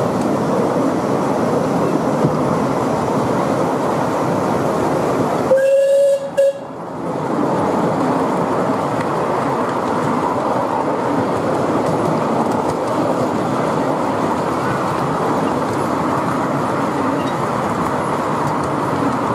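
Miniature railway carriages rolling along the track with a steady rumble and clatter. About six seconds in, the 'Merchant Navy'-class 4-6-2 steam locomotive sounds its whistle for about a second.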